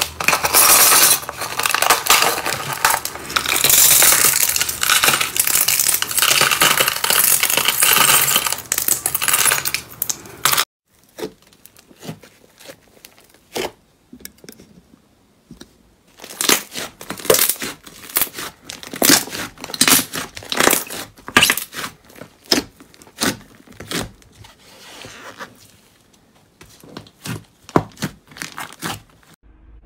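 Dense crackling and crunching of a hardened slime crust being cracked into shards in a plastic tub, stopping abruptly about ten seconds in. Then soft slime being squeezed and pressed, with scattered clicks and pops.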